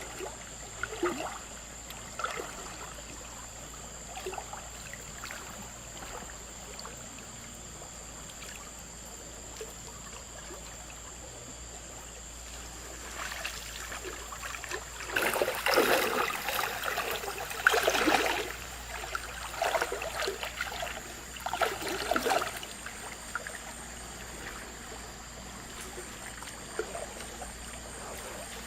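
River water running, with a run of splashes in the middle, the loudest three coming about 16, 18 and 22 seconds in.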